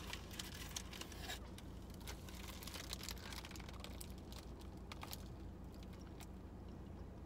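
A paper bagel wrapper crinkles for the first second or so, then a bagel is bitten into and chewed, with scattered small crunches, over a steady low hum.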